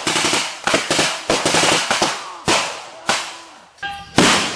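A rapid string of sharp bangs from staged gunfire and explosion effects, each with a ringing tail. They thin out in the second half to a few single bangs, the loudest near the end.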